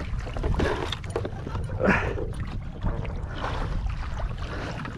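Wind buffeting the action-camera microphone and water lapping against a plastic kayak hull, a steady low rumble, with a short voice sound about two seconds in.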